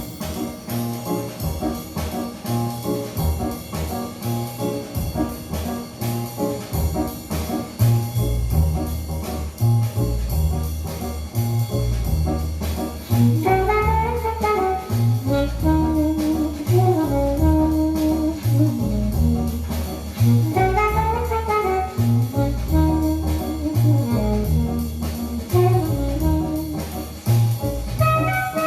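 Jazz recording played back through Bose 701 loudspeakers: a steady bass line, with a horn melody in rising and falling phrases coming in about halfway through.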